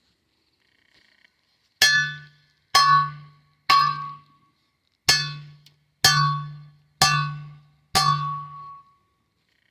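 Seven heavy metal-on-metal blows about a second apart, each a ringing clang with a dull thud beneath it, as a fence post is driven into the ground.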